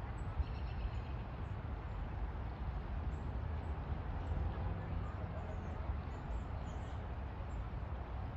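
Steady low outdoor rumble, with faint, short, high-pitched bird chirps scattered through it and a brief run of repeated high notes about a second in.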